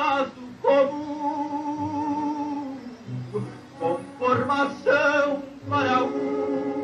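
A song: a solo singer holds long notes with a wide vibrato, two long notes with shorter sung phrases between them.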